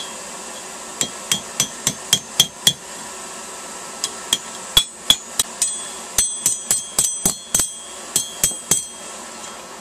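Blacksmith's hammer striking steel on an anvil in quick runs of blows, about three to four a second with short pauses between runs, each blow ringing briefly at a high pitch, over a steady hiss.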